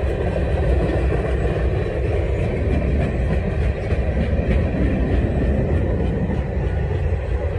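Freight train tank cars and open hopper cars rolling past close by: the steady noise of steel wheels running on the rails, with a few faint clicks.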